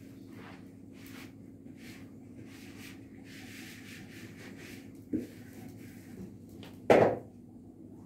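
Refrigerator humming steadily, with a soft knock about five seconds in and a louder thump about seven seconds in.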